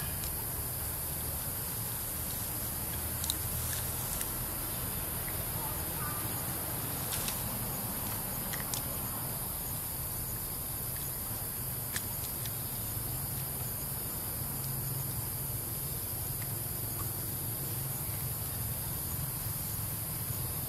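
Steady high-pitched chorus of insects, with a low steady rumble beneath and a few sharp clicks scattered through.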